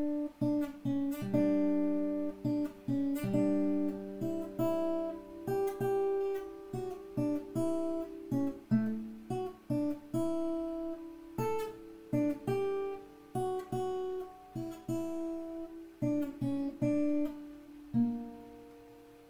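Acoustic guitar played solo, a tune of plucked notes and chords, each note ringing and dying away; it ends on a held note that fades out near the end. Recorded through an Audio-Technica AT2020 cardioid condenser microphone placed close to the guitar.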